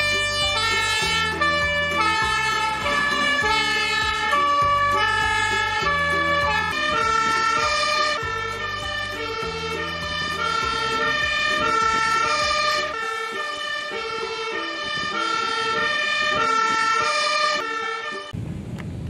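Fire engine's two-tone siren, alternating steadily between a high and a low note. It cuts off near the end.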